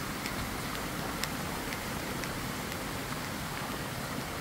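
Many small fountain jets spouting from a long terraced wall and splashing into a stone channel: a steady, even splashing hiss, with a few faint ticks.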